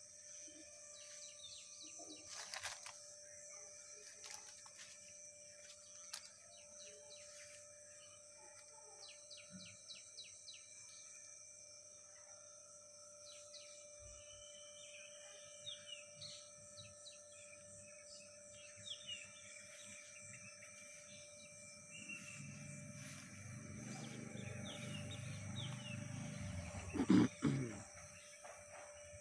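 Quiet outdoor ambience: birds chirping now and then over a steady high-pitched drone. Near the end a low rumble builds and a single loud knock sounds.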